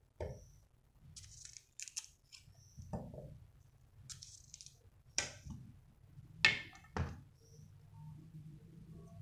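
Kitchen knife cutting and peeling ripe peaches by hand: soft, scattered cutting and scraping sounds, with two sharper knocks about six and a half and seven seconds in.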